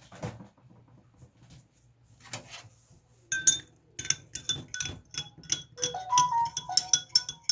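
A spoon stirring a drink in a glass, clinking against the sides. After a few faint taps the strikes start about three seconds in and come quickly, three or four a second, each with a short bright ring.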